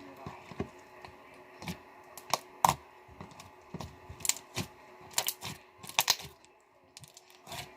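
Slime being squeezed and poked by hand, making irregular sharp clicks and pops.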